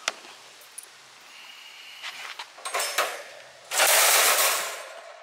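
Folding wire dog crate being handled: a sharp click, light rattling of the wire panels, then a louder rattle and scrape of metal wire about a second long near the end.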